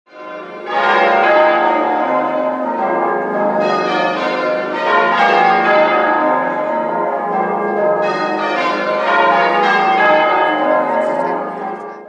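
Church tower bells ringing changes: many bells struck in quick, overlapping succession as one continuous peal. It fades in over the first second and cuts off abruptly at the end.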